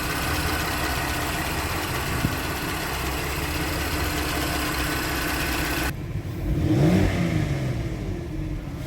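Porsche Cayenne VR6 engine running under load as the car drives, its automatic gearbox changing gear smoothly. About six seconds in the sound changes abruptly and the engine note rises and falls.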